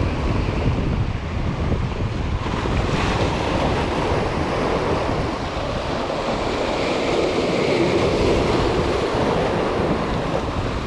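Sea waves washing and breaking over jetty rocks, a continuous churning surf that swells louder in the second half, with wind buffeting the microphone.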